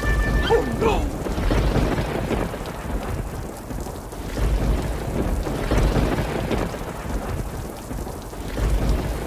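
Rain falling with rolling thunder, the deep rumbles swelling and fading several times.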